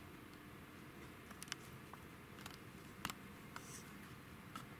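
Faint, scattered light clicks and taps from a cat moving over a cardboard box, the sharpest about three seconds in, against a low steady room hiss.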